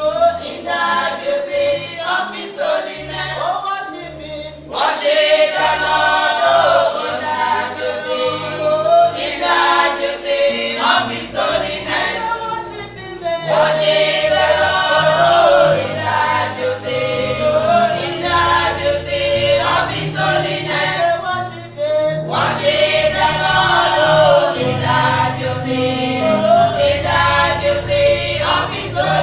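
Church choir singing over low, sustained bass notes, the voices pausing briefly for breath between phrases.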